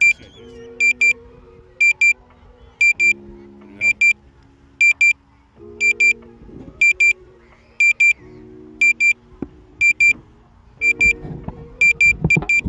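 Drone remote controller sounding a repeated warning alarm: pairs of short, high beeps, a little more than once a second.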